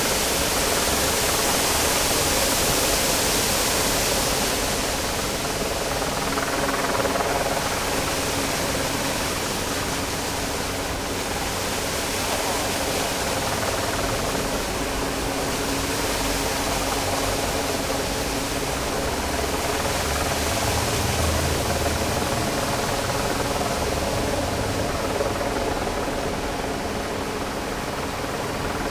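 Jets of a large plaza fountain splashing into its basin: a steady rushing hiss of falling water. The hiss thins near the end as the jets drop low.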